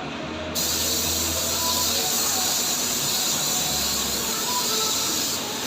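Air spray gun hissing as paint is sprayed, switching on abruptly about half a second in and easing off just before the end, with a low hum underneath.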